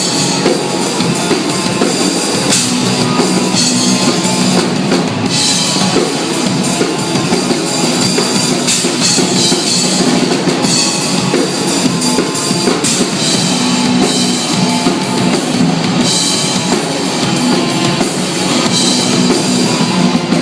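Live rock band playing an instrumental passage between verses: drum kit with cymbals driving a steady beat under guitar, with no singing.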